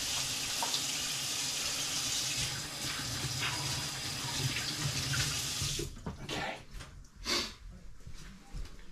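Kitchen tap running while hands are washed under it, shut off about six seconds in; a few small knocks and rustles follow.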